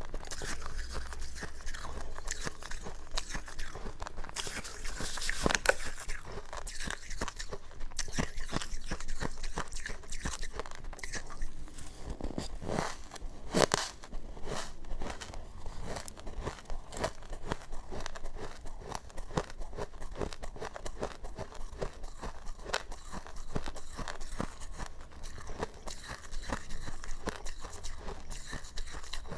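Close-miked biting and chewing of powdery freezer frost: a dense run of crisp crunches, with a couple of louder bites along the way.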